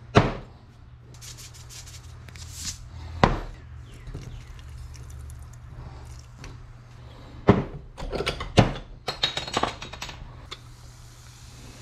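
A glass pint glass and a green glass beer bottle being handled and set down on a workbench: several sharp knocks, then a run of light clinks about eight to ten seconds in. There is a short hiss a little over two seconds in.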